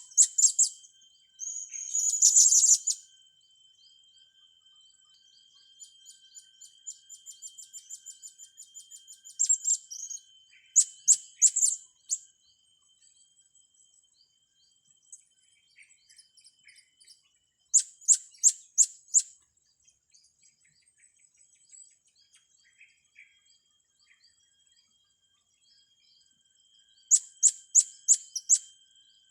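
Young blue-crowned hanging parrots (serindit) giving shrill, high-pitched calls in short bursts of several quick notes, with quiet gaps between the bursts.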